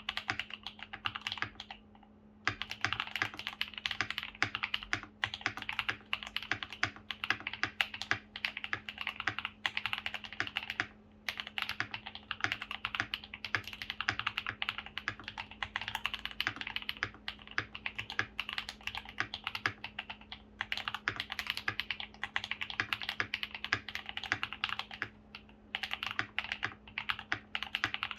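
Typing on a Keychron V1 mechanical keyboard with lubed KTT Darling switches, tape mod and PE foam, and ABS double-shot keycaps: fast, continuous keystrokes with brief pauses about 2, 11 and 20 seconds in.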